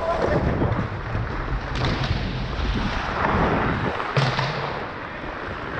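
Ice hockey play heard up close from a skating player: skate blades scraping and carving the ice in a steady noisy rush, with two sharp knocks about two seconds and four seconds in.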